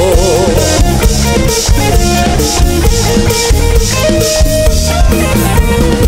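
Band music from a live stage show, played without singing: a drum kit keeps a steady beat under bass and held instrumental notes.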